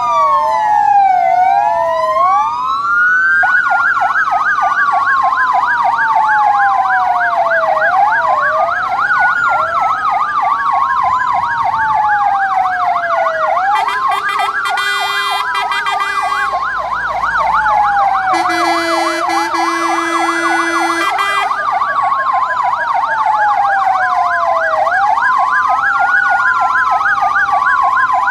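Several fire engines sounding their sirens together: slow rising-and-falling wails overlap a fast yelping sweep, with two long steady blasts about halfway through and a two-tone pattern near the end. The sirens are sounded in tribute at 'W-Hour', the 5 p.m. commemoration of the Warsaw Uprising.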